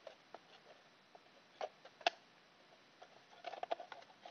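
Light clicks and creaks from the plastic case of a ReefLink controller being squeezed and pried apart by hand: a few single clicks, the sharpest about two seconds in, then a quick run of clicks near the end.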